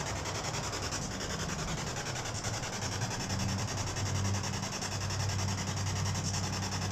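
Spirit box (ghost-box radio) sweeping through stations: a steady scratchy hiss of static with a rapid, even choppiness and a low hum beneath it.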